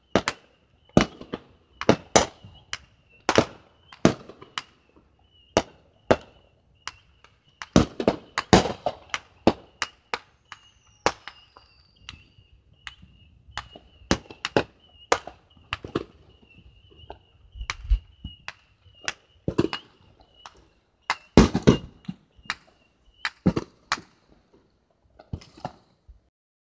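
Fireworks going off: dozens of sharp bangs at irregular intervals, some coming in quick clusters.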